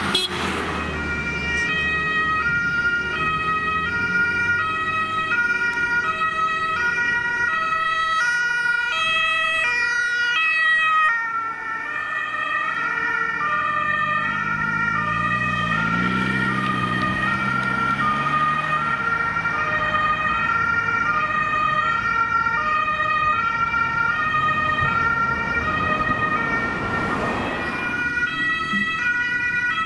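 German two-tone emergency-vehicle sirens (Martinshorn) on an ambulance and an emergency doctor's car, alternating high and low tones about twice a second. A vehicle's engine passes close by about halfway through.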